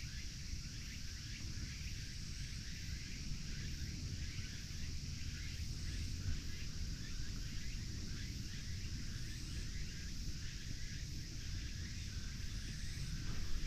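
Outdoor ambience: a steady, high-pitched insect drone with a constant low rumble underneath.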